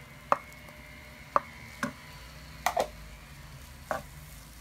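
Wooden spoon stirring leeks and mushrooms in a pan, knocking against the pan about six times, once as a quick double knock. Underneath is a faint sizzle of the leeks frying.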